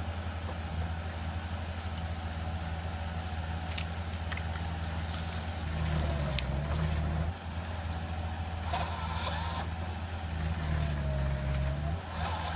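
Diesel engine of a compact forestry machine running steadily, working harder twice, about halfway through and near the end. Each time a higher whine dips and rises in pitch over the drone, and a few light clicks fall in between.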